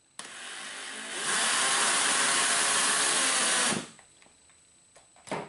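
Cordless drill/driver running into the plastic wall of a cooler to set the fastening for a latch strap. It starts at low speed, picks up to full speed about a second in, runs for about two and a half seconds more and stops, with a short noise near the end.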